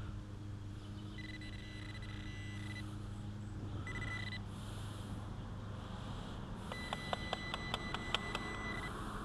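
Handheld metal-detecting pinpointer probe sounding a high electronic beep tone in short stretches, then a fast pulsed beeping for the last couple of seconds as it is worked through the dirt onto a buried metal target.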